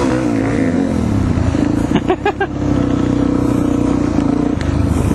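Suzuki DR-Z400E's single-cylinder four-stroke engine heard close up from the rider's helmet, its revs falling in the first second and then holding steady while riding. Three short high blips come about two seconds in.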